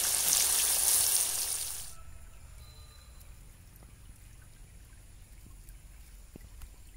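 Flour-coated chicken pieces deep-frying in a kadai of hot oil, with a loud, even sizzling hiss that cuts off about two seconds in. A faint, quiet background follows for the rest.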